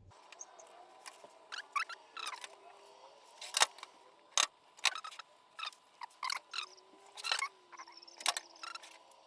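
Scattered light clicks and short squeaky scratching strokes of a pen or marker tracing a template onto a clear acrylic sheet.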